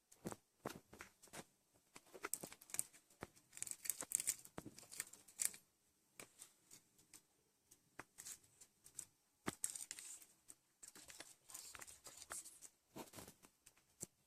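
Hands working slime: irregular sticky clicks and crackles, with short hissy bursts as it is squished and pulled.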